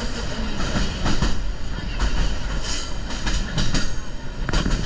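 Sagano Romantic Train carriage running along the track, heard from on board: a steady rumble of wheels on rail with irregular clacks.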